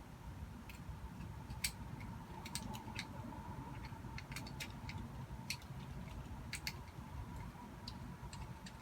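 Small, irregular clicks and taps of a die-cast toy truck being handled as its base and wheels are pried apart and refitted, the loudest click about a second and a half in, over a faint low hum.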